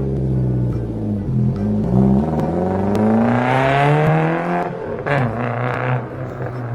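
An engine revving, its pitch climbing steadily for about two seconds before it drops off.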